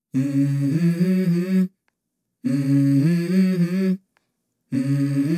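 Wordless humming of a melody by a single unaccompanied voice, in three phrases of about a second and a half each with short silences between them: the a cappella opening of a rap song.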